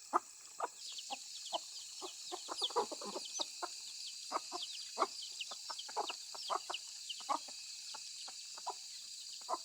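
Chickens clucking in short, irregular calls, with many short falling high chirps and a steady high hum behind them.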